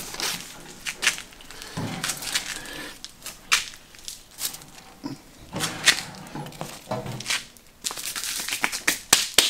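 Baking paper crinkling and rustling in short, uneven bursts as a smoked brisket is handled on it.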